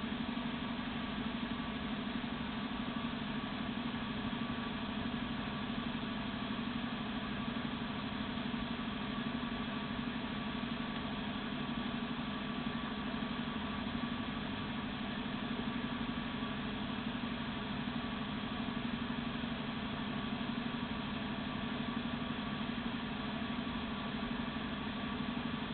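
A steady mechanical hum, a motor or engine running at a constant speed, with several steady tones and no change.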